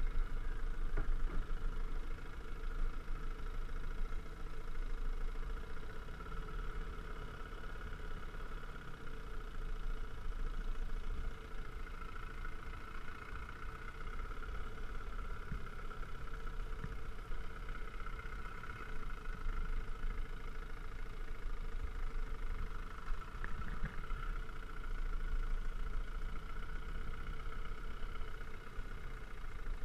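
Small outboard motor running steadily at low speed, pushing a small boat.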